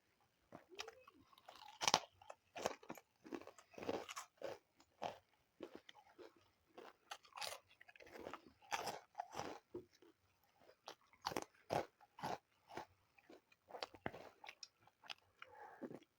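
Close-miked eating: mouths chewing and crunching food in quick, irregular bites, with moist smacking between the crisp crunches.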